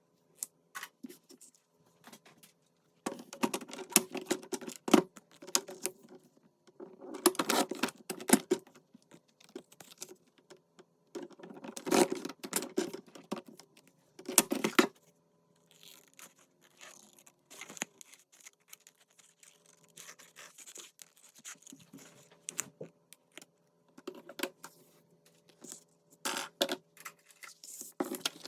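Paper-crafting handling sounds: sheets of paper and card being handled, rustled and tapped on a desk, with small clicks, in several bursts separated by quieter pauses.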